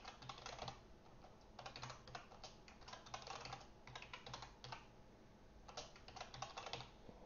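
Quiet computer keyboard typing, several quick runs of key clicks with short pauses between them.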